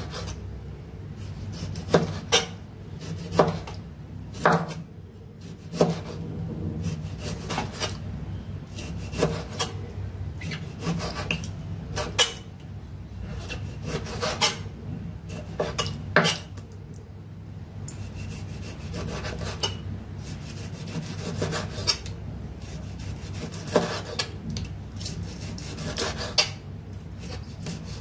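Kitchen knife slicing boiled meat on a wooden cutting board: a sawing rub as the blade draws through the meat, with the blade knocking on the board irregularly, every second or two.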